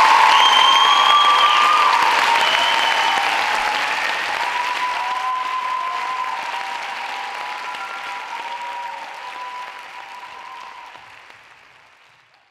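Audience applauding with held cheers on top. The applause dies away gradually and stops just before the end.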